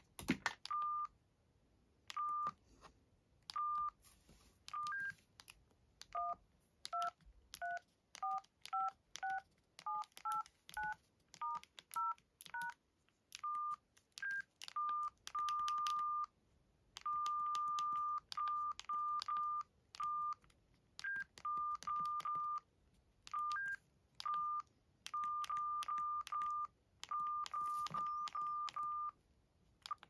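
Samsung SGH-T410 flip phone's keypad beeps as its keys are pressed over and over to scroll through menus. Most are short beeps at one pitch, some held a little longer, with a run of two-note tones at changing pitches in the middle. A sharp click sounds just at the start.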